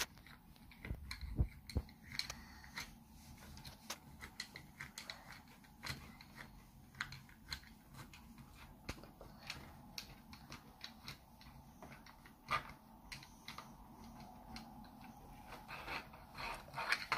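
Small plastic toy doll and its plastic stand handled on a wooden tabletop: scattered light clicks and taps, with a low thump about a second and a half in.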